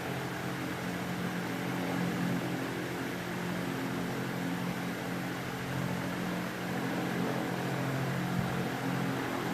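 A steady mechanical hum over an even hiss, holding one pitch.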